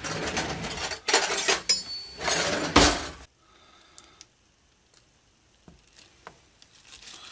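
Scraping and clattering as a soap mold is handled and pried open for about three seconds, then a few faint taps and clicks.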